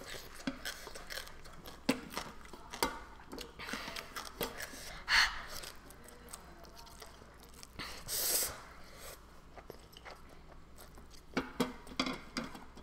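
A person eating instant noodles with chopsticks: quiet chewing and soft clicks, with two louder slurps about five and eight seconds in.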